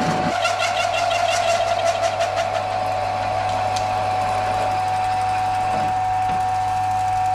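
Mill-drill spindle running steadily with a steady motor whine as a 25 mm drill bores through metal plate under hand feed. Rapid ticking from the cutting comes through during the first few seconds.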